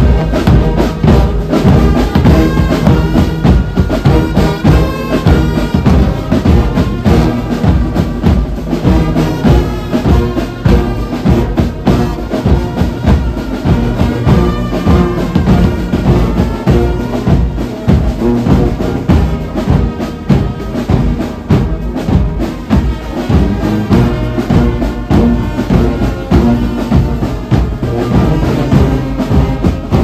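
Brass band playing a tune, with sousaphones and other horns over a steady drum beat. It strikes up loudly at the very start.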